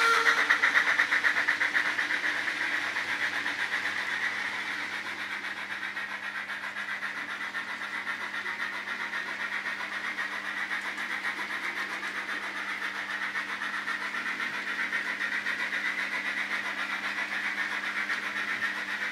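HO-scale model trains running on the layout's track: a steady, fast rattle of small wheels on the rails over a low hum. It is loudest as a passenger train passes close by, then eases off after a few seconds into a quieter rolling sound.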